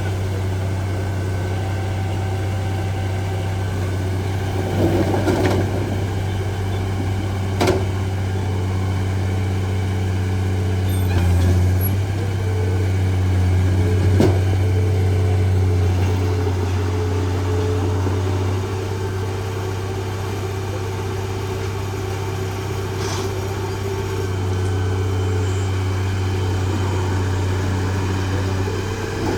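Heavy diesel engine of earthmoving machinery running steadily with a deep, even note, with a few sharp metallic clanks along the way.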